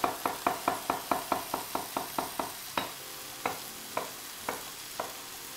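Chef's knife chopping an onion on a wooden cutting board: quick even chops about five a second, slowing to single cuts about every half second after two and a half seconds. Behind it, a steady sizzle of shredded king oyster mushrooms frying in oil in a hot cast iron pan.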